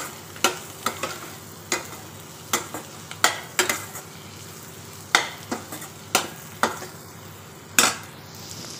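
A spoon stirring ground spices through frying onions in a pan, scraping and clinking against the pan about a dozen times at irregular intervals over a steady sizzle.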